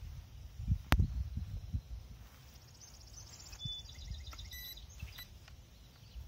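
Open-field ambience: a low rumble and bumps of wind on the microphone, a single sharp click about a second in, and a high, rapid chirping trill in the middle.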